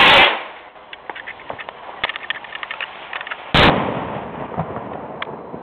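Firework rocket going off: a loud rushing hiss at the start as it launches, a scatter of faint crackles, then a single sharp, loud bang about three and a half seconds in as it bursts in the air, with a rolling echo after.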